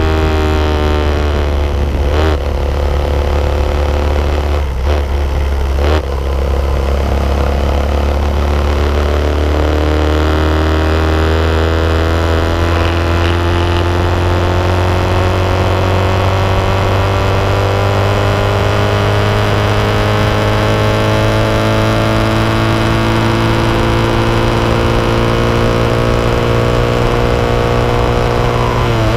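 Honda 90 motorcycle's small single-cylinder four-stroke engine running under way, heard from on board with wind rush over the microphone. The engine note falls and dips briefly two or three times in the first six seconds, then climbs slowly and steadily as the bike accelerates.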